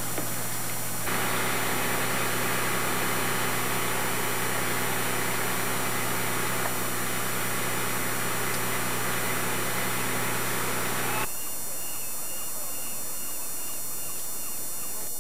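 Steady low hum under an even hiss of background noise, with a few faint steady tones in it; it steps louder about a second in and drops abruptly near the end.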